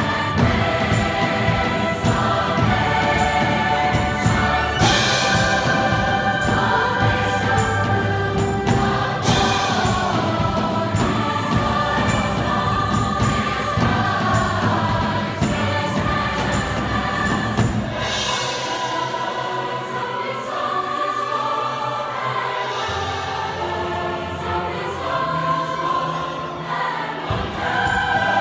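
Large mixed choir singing with a string orchestra accompanying. About eighteen seconds in, the low accompaniment drops away, leaving the voices and upper strings, and the bass comes back in just before the end.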